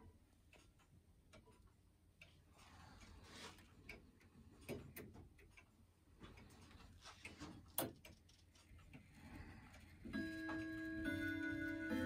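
Grandfather clock movement giving off faint, irregular clicks and ticks as its minute hand is pushed round by hand. About ten seconds in the chime hammers start striking the chime rods, and several ringing notes of the chime melody overlap.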